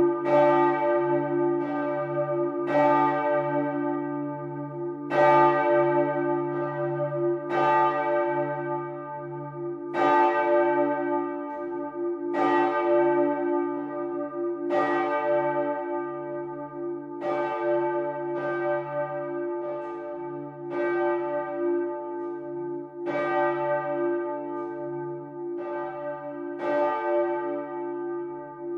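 A swinging bronze church bell of Bremen Cathedral ringing in full swing. The clapper strikes a clang every one to two and a half seconds, and each stroke rings on into the next over a deep, steady hum.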